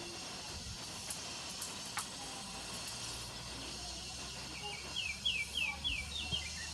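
Insects buzzing steadily in the background, with a small wild songbird singing a short phrase of about six quick, high, down-slurred chirps ending in a falling note, about two-thirds of the way in.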